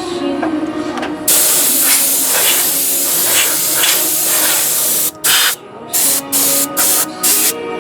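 Pressurised spray hissing loudly and steadily. A little past halfway it breaks into a quick run of short bursts. Music plays underneath.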